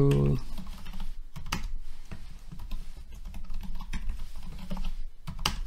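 Typing on a computer keyboard: irregular runs of key clicks as a password is entered and then entered again, with a sharper keystroke near the end.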